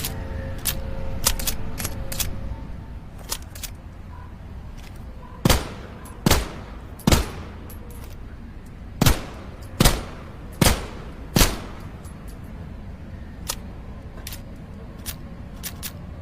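Seven P38 pistol shots, a quick group of three and then a group of four, roughly a shot every 0.8 s. Fainter sharp clicks come before and after them.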